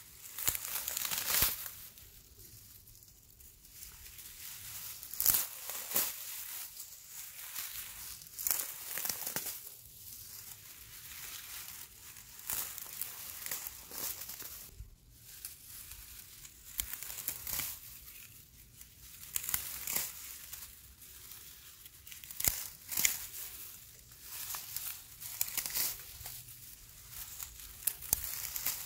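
Dry grass stems crackling and rustling as a hand grabs and pulls at tufts of dry grass, in irregular bursts every second or so.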